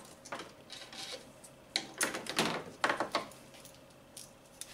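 Pliers clicking and scraping against plastic connector clips and fittings down beside a car radiator, in a handful of short, irregular scrapes and clicks, the loudest about two and three seconds in.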